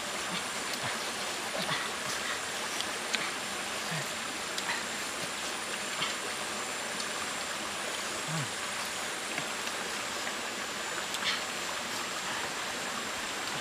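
River water flowing, a steady even rush, with a few faint clicks scattered through it.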